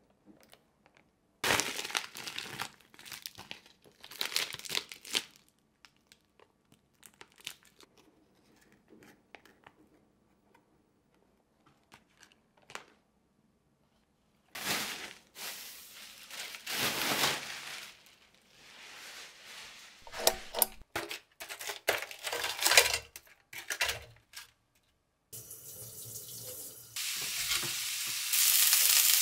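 Plastic food packaging rustling and crinkling in irregular bursts as grocery packs are handled: a clear plastic tray of pork belly and plastic-wrapped packs of salted mackerel. About 25 seconds in, thin slices of pork belly start sizzling in a frying pan, the sizzle growing louder a couple of seconds later.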